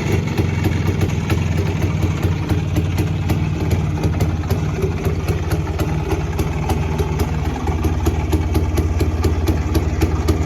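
Rajdoot RD 175's two-stroke single-cylinder engine idling steadily through its stock exhaust.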